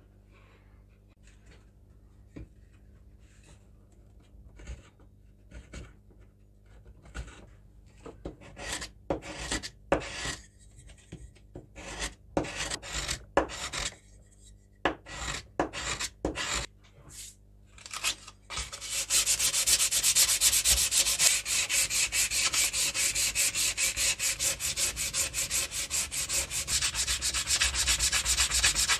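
Sandpaper rubbing on a wooden hammer handle made from an old broom handle, sanded by hand. It starts as separate scratchy strokes, then after about two-thirds of the way through turns to fast, steady back-and-forth sanding that is much louder.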